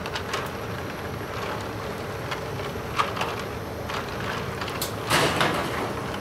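Silicone spatula scraping and knocking in a stainless steel hotel pan in a few short, separate strokes, the loudest a little after five seconds, over a steady background hum.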